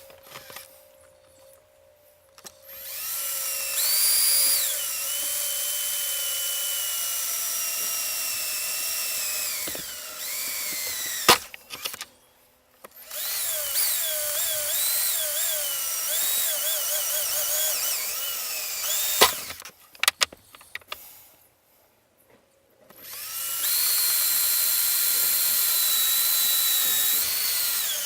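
Handheld electric drill boring holes in a switch blanking plate, run in three bursts of several seconds with short pauses and a few sharp clicks between them. Its whine sags and wavers in pitch as the bit bites.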